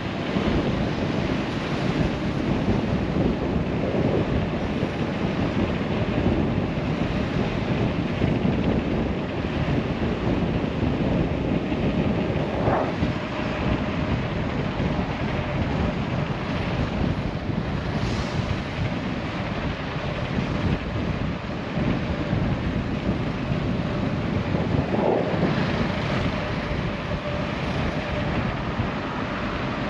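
Wind buffeting the microphone of a camera on a moving bicycle, a loud steady rushing rumble. Two short higher-pitched chirps cut through it, about halfway and near the end.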